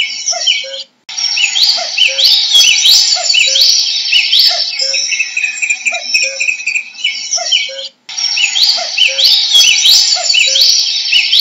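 A common cuckoo calls its two-note 'cuck-oo' again and again, a lower falling pair under a louder, dense chorus of other songbirds' high chirps and rising trills. The sound cuts out briefly twice, about a second in and near eight seconds in.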